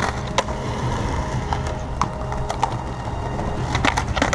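Skateboards on concrete: wheels rolling with a steady low rumble, broken by sharp clacks of boards popping, hitting the concrete ledge and landing, several close together near the end.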